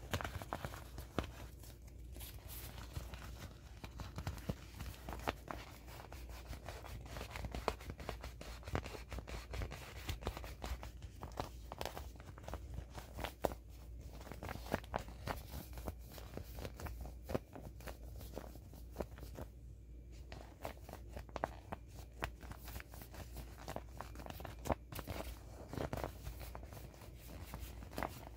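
Shiny vinyl of a small inflatable elephant being squeezed and rubbed by hand: irregular rubbing, scraping and crinkling with many short clicks.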